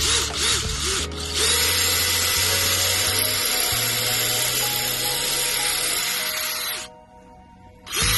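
Power drill boring into the wall: a few short bursts, then a steady run of about five seconds that cuts off and starts again near the end, with background music underneath.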